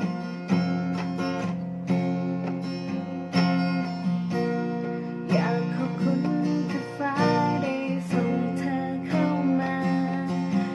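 Acoustic guitar strumming chords, each new strum landing every second or two and ringing on between them.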